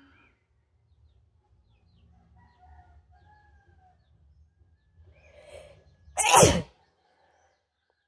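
A woman sneezes once, loudly and suddenly, about six seconds in, after a short in-breath. The sneeze is provoked by tickling the inside of her nostril.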